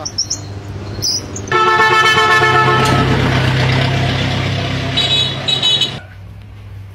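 Vehicle horn sounding one long steady blast, followed by a rushing street noise with two short, higher honks near the end.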